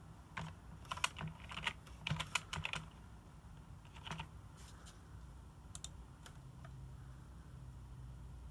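Computer keyboard typing: a quick run of keystrokes over the first three seconds, then a few scattered clicks.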